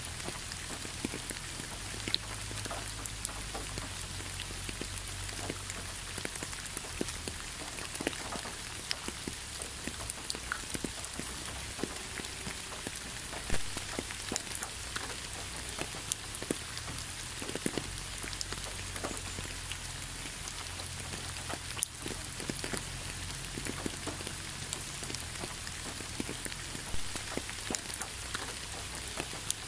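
Steady rain falling on fallen leaves, tree branches and the ground: a constant hiss with many separate drops ticking close by.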